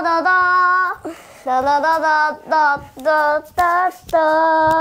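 A child singing a wordless tune: one long held note, a short pause, a run of four short notes, then another long held note near the end.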